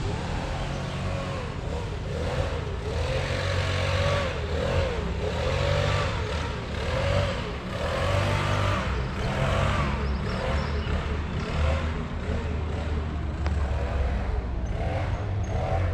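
Motor vehicle on the move: a steady low engine hum and road noise, with a wavering tone that rises and falls over and over.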